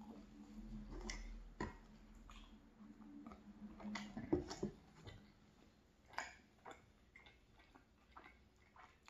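Close-up chewing of a bite of flaky butter croissant: scattered soft mouth clicks and crackles, with a sharper click about four seconds in.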